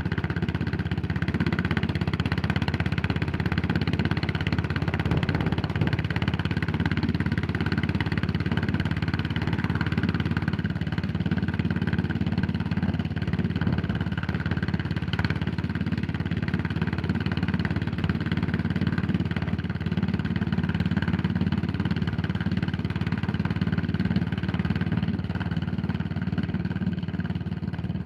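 Yamaha SR400's air-cooled single-cylinder four-stroke engine running steadily, its exhaust note even throughout and easing off a little near the end.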